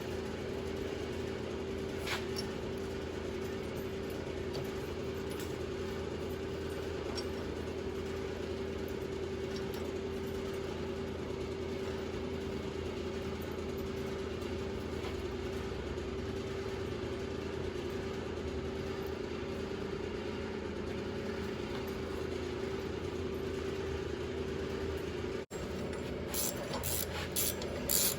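A steady machine hum with one constant mid-pitched tone. Near the end, after a brief break, comes a run of quick clicks, about four a second, from a ratchet wrench being worked.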